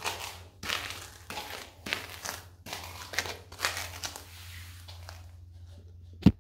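Dry pretzel pieces crunching and crumbling under wedge-heeled sandals: a run of separate crunches through the first four seconds or so, then quieter. A single sharp thump near the end is the loudest sound, over a faint low hum.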